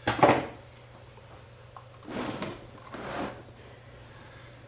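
A sharp metallic clatter, then two short scraping rattles about two and three seconds in, as the X2 mini mill's head is worked along its column. A steady low hum runs underneath.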